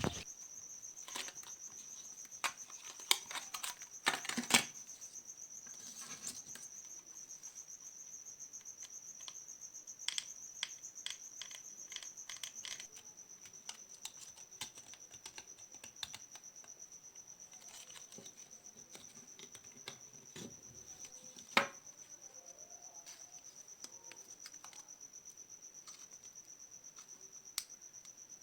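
Steady high-pitched insect trill, like a cricket, running on without a break. Scattered sharp clicks and taps sound over it, the loudest about three and four and a half seconds in and again past the twenty-second mark.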